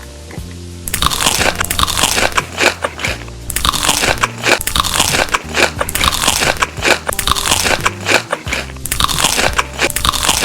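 Close-miked, loud crunching of crisp food being bitten and chewed. It starts about a second in and comes in stretches of dense crackling broken by brief pauses.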